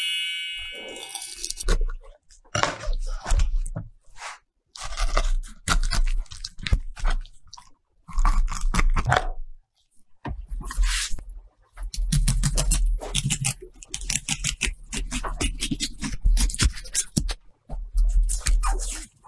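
A knife cutting along a whole raw salmon on a plastic cutting board: repeated scraping, crunching strokes as the blade works along the backbone and ribs, with low thuds of the fish against the board. A brief ringing chime opens it.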